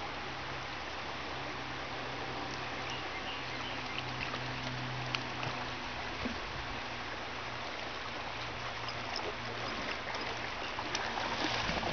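Shallow rocky creek running steadily over stones, a continuous rush of water, with a few faint brief splashes from dogs wading in it.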